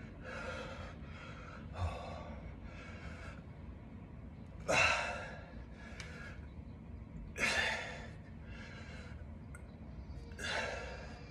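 A man breathing hard while doing dumbbell lunges: sharp, forceful exhales or gasps roughly every two to three seconds, in time with the reps. The strongest come about five, seven and a half and ten and a half seconds in, with softer breaths between.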